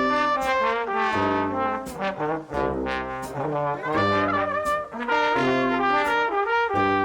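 Music led by brass instruments, several horns playing changing notes together.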